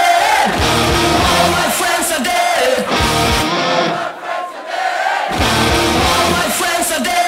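Frenchcore dance music with a fast, heavy low beat and shouted vocal samples. About three and a half seconds in, the beat drops out for nearly two seconds, then comes back.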